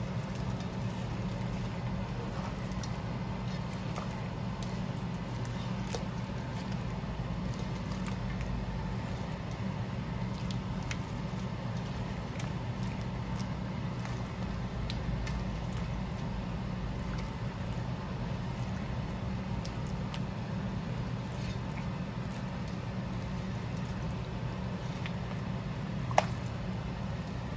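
Shrimp and vegetables simmering in coconut milk in a metal wok, with faint scattered ticks and pops and the occasional scrape of a silicone spatula stirring, over a steady low hum. One sharp click near the end.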